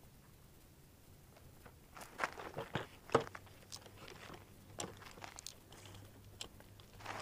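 Handling noises: crunches and light clicks as an AR-15 rifle is shifted and settled onto an ammunition box on gravel, busiest about two to three seconds in, with scattered small ticks after. No shot is fired.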